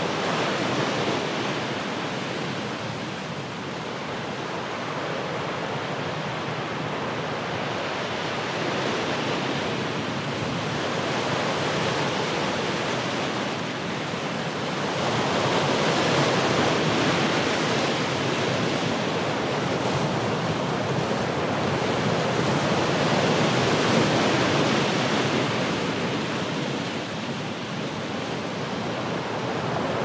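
Ocean waves crashing on rocks: a continuous wash of surf that swells louder twice, around the middle and again a little later, as waves break.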